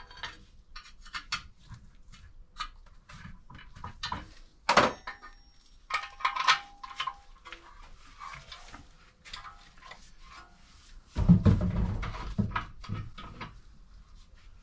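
Clinks, knocks and scrapes of metal motorcycle exhaust parts being handled on a workbench. There is a sharp knock about five seconds in, a brief metallic ring just after, and a heavier low thumping for about a second near the end.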